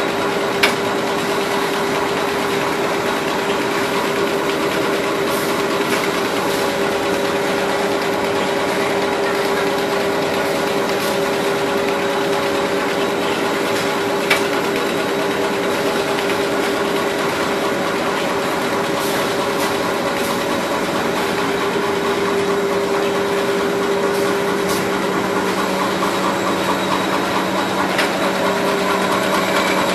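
Rotary A4 paper cutting machine running steadily: a continuous mechanical hum with a constant tone, and a couple of sharp clicks, one just after the start and one about halfway through.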